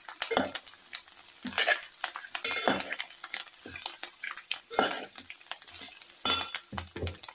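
Metal spoon stirring and tossing amaranth leaves in a metal pan, scraping and clinking against the pan at irregular intervals, over a faint sizzle of frying.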